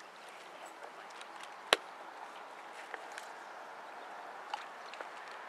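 Quiet outdoor background with one sharp, loud click a little under two seconds in and a few fainter ticks.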